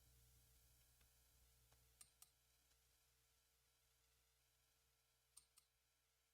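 Near silence: room tone, with two quick pairs of faint clicks, one about two seconds in and another about five and a half seconds in.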